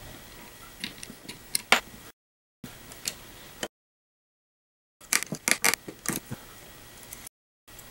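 Sharp clicks and light knocks from the end cap of a small electric motor being handled and worked loose: a few scattered clicks, then a quick cluster about five seconds in. The sound drops out completely for two stretches between them.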